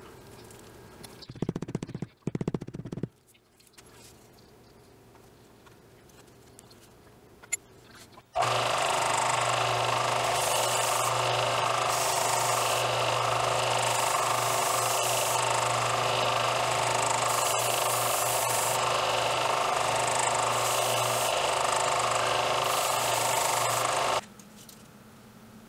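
Benchtop belt-and-disc sander running steadily with a low motor hum and a dense sanding hiss as the edge of a leather sheath is pressed to the belt. It starts abruptly about a third of the way in and cuts off near the end. A few brief, loud handling clatters come earlier.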